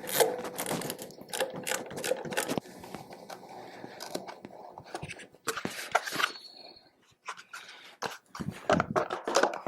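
Hand tools working the last bolt on a portable generator: a scraping stretch, then scattered metallic clicks and knocks, with a brief high squeak about six seconds in.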